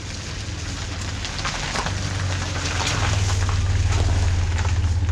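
A vehicle engine drawing closer, its low, even running growing steadily louder, with a crackling hiss over it.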